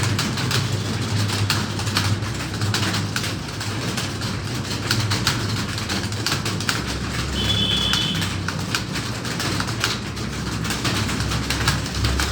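Many computer keyboards clattering at once as a room of candidates types a timed test, the key clicks dense and irregular over a steady low hum. A brief high chirp sounds a little past halfway.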